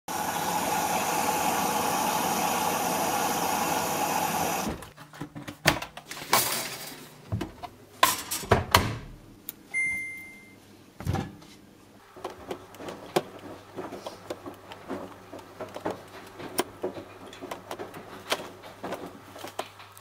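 Front-loading washing machines being set up. A loud steady rushing noise stops abruptly about five seconds in, followed by scattered clicks and knocks of handling and a single short electronic beep from a control panel about ten seconds in, over a faint low hum.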